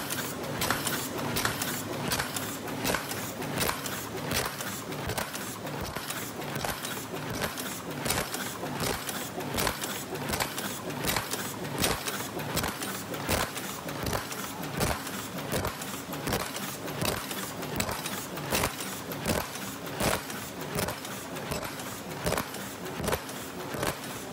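Paper cup forming machine running at speed: a steady, rapid mechanical clatter of sharp knocks and clicks, several a second, from its indexing turret and forming dies.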